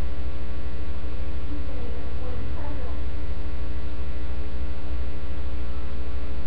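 Loud, steady electrical mains hum with several even tones stacked above it, with faint distant voices underneath.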